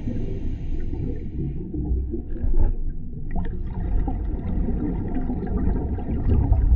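Underwater noise as heard by a scuba diver's camera: a steady low rumble with gurgling from the regulator's exhaled bubbles, swelling about two and a half seconds in and again near the end.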